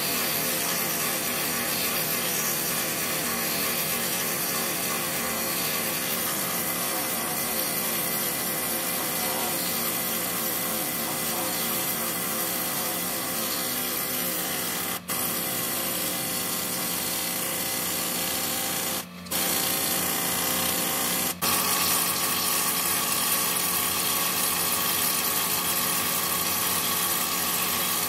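Handheld pneumatic tool running steadily against the steel of a truck steering knuckle. It cuts out briefly three times about halfway through, and runs with a slightly brighter tone after the third stop.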